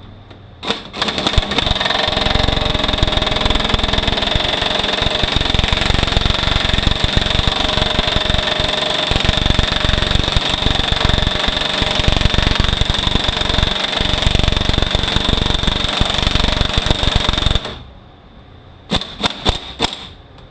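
Pneumatic air tool hammering steadily on a steering wheel puller to draw a tight part off a manual transmission. It cuts off suddenly near the end, followed by a few sharp metallic clicks.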